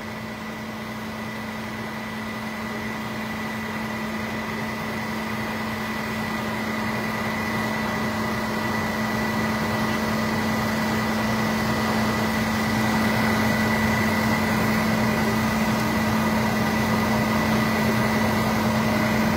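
Steady engine drone, growing gradually louder.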